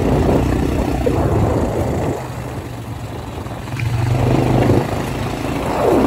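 Quad bike (ATV) engine running while riding. The engine note drops about two seconds in as the throttle eases off, and picks up again about four seconds in.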